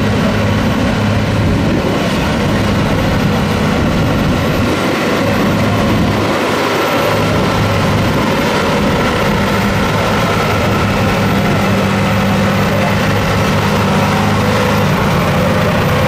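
Case IH Puma tractor's diesel engine running hard under heavy load as it drags a weight-transfer pulling sled, a steady, even drone that holds to the end of the run, a full pull.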